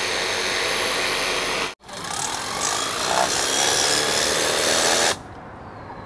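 Jupiter cordless pressure washer running, its pump and hard water jet hissing against glass and a window frame. It breaks off for an instant a little under two seconds in, resumes, and stops abruptly about five seconds in. The jet is strong enough to strip paint from the frame.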